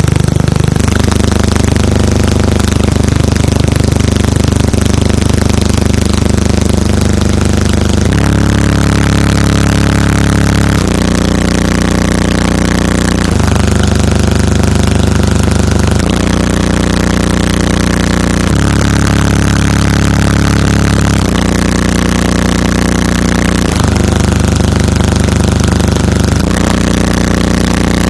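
Loud bass played through six old-school JBL 1200GTi 12-inch subwoofers in a truck's wall, heard from the cab. It is recorded close to full scale on a phone, so it comes out as a heavy, overloaded drone. The bass holds one pattern at first, then from about eight seconds in changes notes about every two and a half seconds.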